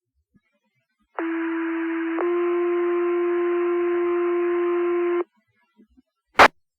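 Two-tone sequential fire-department paging tones over radio: one tone for about a second, then a second tone held about three seconds. This is the alert that sets off the volunteer firefighters' pagers ahead of the dispatch. A sharp click follows about six seconds in.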